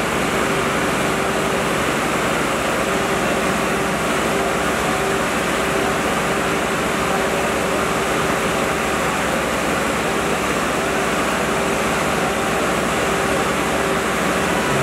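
Two three-cylinder diesel tractor engines, a John Deere 5310 and a Swaraj 855, running hard and steady under full load as the tractors pull against each other in a tug-of-war.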